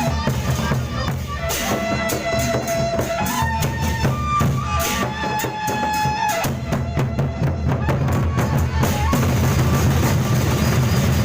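Gendang beleq ensemble playing: big drums beating under a held melody line and dense clashing cymbals. The melody drops out a little after six seconds, leaving drums and cymbals.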